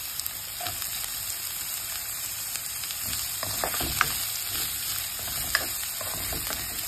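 Chopped red onions and dried chillies sizzling in hot oil in a nonstick frying pan, tempering. A spatula stirs them, with a few sharp scrapes and clicks against the pan a little past halfway through.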